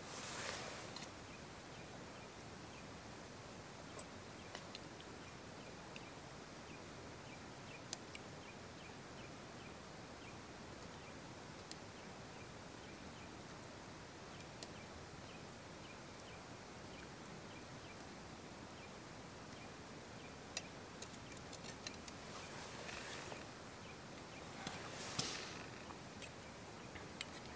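Faint steady outdoor background hiss, with scattered light clicks of a spoon against a metal cooking pot and brief rustling near the end.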